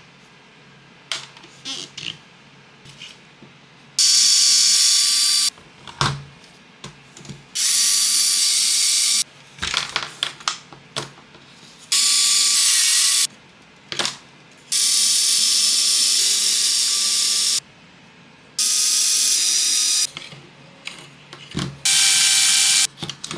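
Small electric screwdriver backing out screws from an RC car chassis, running in six short runs of one to three seconds each, with clicks and knocks of parts being handled in between.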